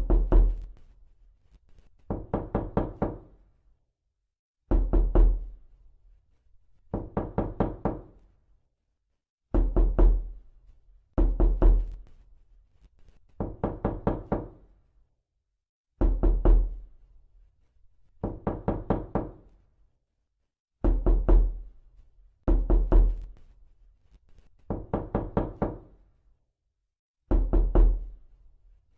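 Knuckles knocking on a door in quick bursts of several rapid knocks, repeated every two to three seconds with silent gaps. Louder, heavier bursts alternate with somewhat softer ones.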